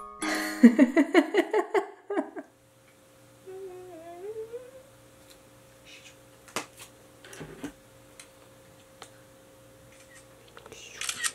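A quick run of bright chime-like music notes in the first two seconds, then a woman humming a few soft notes. Scattered clicks and handling of a plastic salad-dressing bottle follow, with a short hissy burst near the end.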